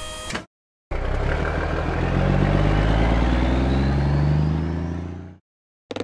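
Cartoon truck engine sound effect revving up and pulling away, its pitch rising steadily. It starts about a second in and cuts off abruptly near the end.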